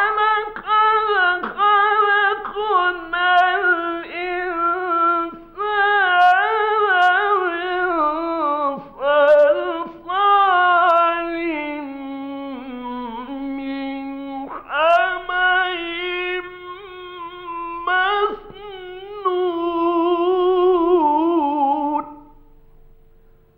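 A man's voice chanting Quran recitation in long, ornamented melismatic phrases, with held notes, pitch turns and short breaks for breath, ending about 22 seconds in. A faint steady hum tone runs underneath.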